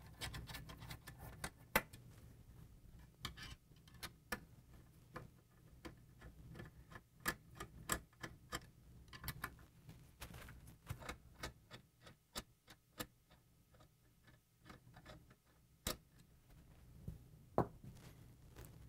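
Faint, irregular small metallic clicks and ticks, some in quick runs: a screwdriver turning out the screws that hold a microscope's motorized XY stage, and the screws being handled.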